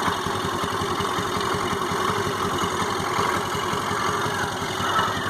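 Honda Activa 4G scooter's single-cylinder engine idling steadily with an unusual "kar-kar" noise, quite different from its normal sound, which the mechanic thinks is coming from inside the engine.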